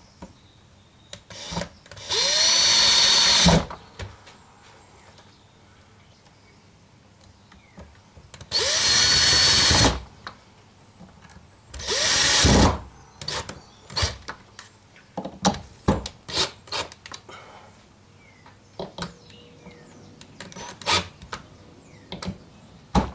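Cordless drill-driver driving screws into a wooden frame in three bursts of one to one and a half seconds, each spinning up as it starts, the third the shortest. The bursts are followed by a string of short clicks and knocks.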